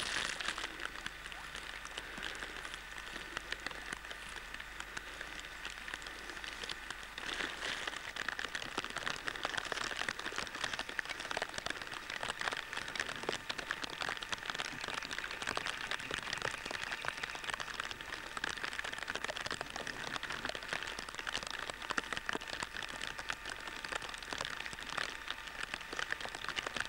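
Steady rain falling, a dense crackle of many small drops.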